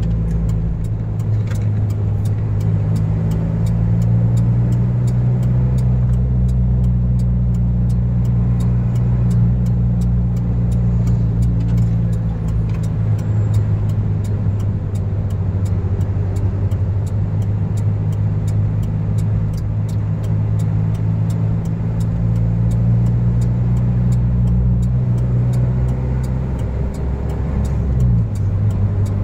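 Car engine running steadily with a low hum, its note shifting briefly near the end, under a light regular ticking.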